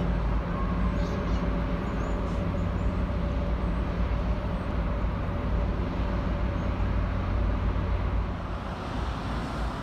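Steady low engine rumble from a passing container ship and the harbor tug working at its bow, with a faint steady hum running through it.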